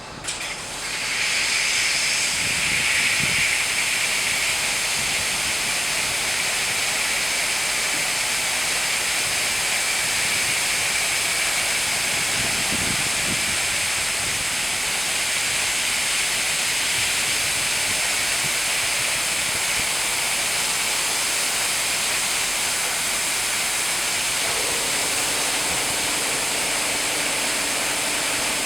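High-pressure water jets of a dual-arm touchless car washing machine spraying, a loud steady hiss that starts about a second in and then holds.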